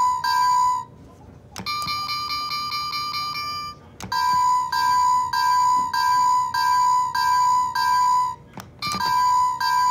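Toy railroad crossing's electronic bell ringing a repeating ding about twice a second. It stops about a second in, and after a click a higher ding repeats about four times a second for two seconds. Another click brings back the first bell, which cuts out and restarts with two more clicks near the end.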